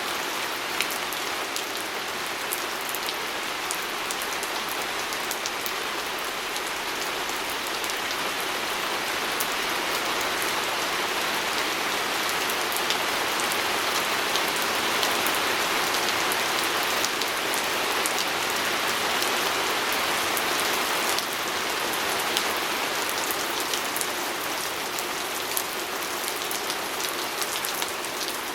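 Steady rain falling, with many small sharp drop ticks over an even hiss, as rain striking a window pane.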